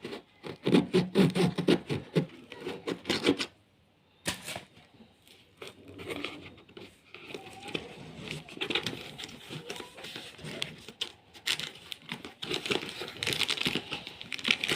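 Ceiling fan packaging being torn open and handled: a dense run of rapid tearing crackles in the first few seconds, a brief pause, then scattered rustling and crinkling of the wrapping.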